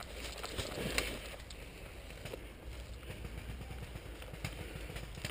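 Rustling and light clicks of dry brush, leaves and handled gear at close range, over a steady low wind rumble on the microphone.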